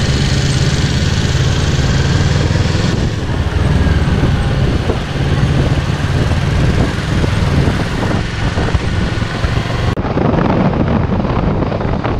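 2017 Kawasaki Z650's parallel-twin engine through its stock exhaust, idling and then pulling away. Wind noise on the microphone rises over the engine near the end.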